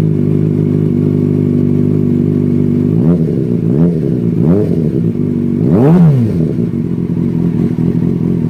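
Inline-four sport motorcycle engine idling, heard at the muffler outlet; the throttle is blipped three times in quick succession about three seconds in, then revved higher once around six seconds before dropping back to idle.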